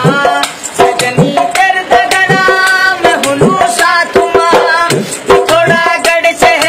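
Dholak, a rope-laced two-headed hand drum, played in a quick rhythm, with a man singing over it. Some of the low drum strokes bend in pitch.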